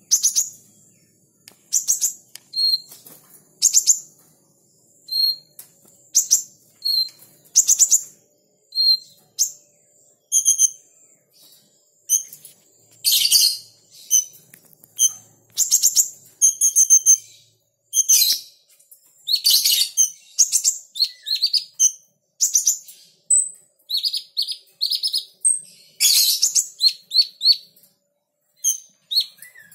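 Crimson sunbird calling: short, sharp, very high chirps and quick little trills in bursts about every second, with brief pauses between.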